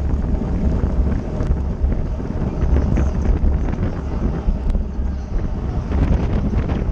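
Wind buffeting the microphone of a camera riding on a racing bicycle at speed: a steady, heavy low rumble with a hiss of air over it and a few faint ticks.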